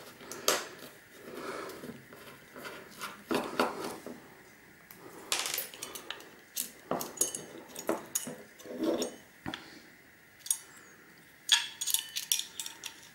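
Small screwdriver and fingers working on an opened hard drive's read/write head arm: irregular metallic clicks, scrapes and clinks of the tool, screws and parts against the drive's metal chassis.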